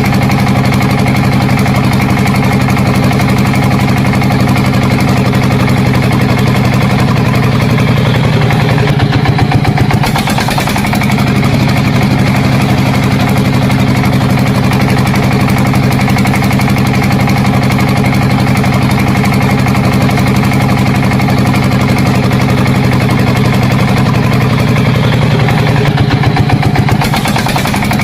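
An engine running steadily at an even speed, a loud constant drone that wavers briefly about ten seconds in.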